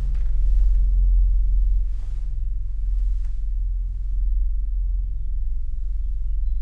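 Low sustained drone from the film's score: a deep, steady hum with a faint higher tone held above it.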